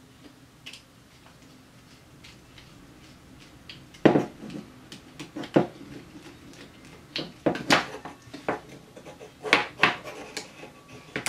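Hard plastic drone parts being handled and fitted together by hand: a few seconds of faint small ticks, then a run of sharp clicks and knocks, the first of them the loudest.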